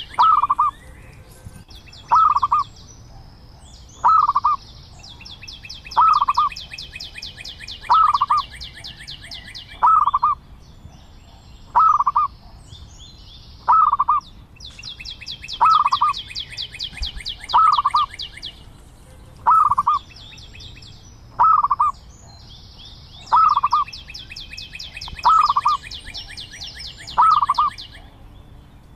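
Zebra dove calling, one short note repeated evenly about every two seconds, with long stretches of rapid, high-pitched chirping trills between the calls.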